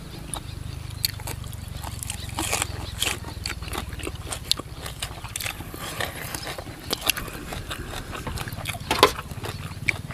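Close-up eating sounds: wet chewing and smacking with many short, crisp crunches as raw green vegetables and green papaya salad are bitten and chewed, over a low steady rumble.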